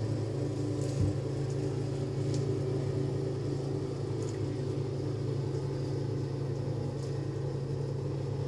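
Steady low mechanical hum of room noise, with a faint knock about a second in.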